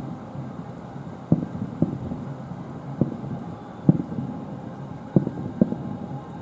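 Fireworks shells bursting: six deep booms at uneven intervals, some in quick pairs, each trailing off in a rumbling echo over a steady low rumble.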